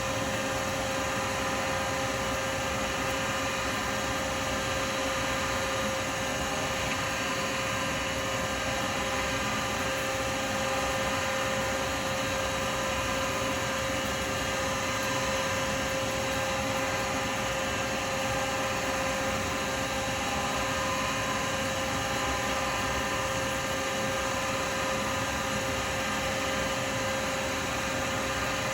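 Woodturning lathe running steadily with an even hum while an acrylic pen blank spins under wet sanding with a fine abrasive pad.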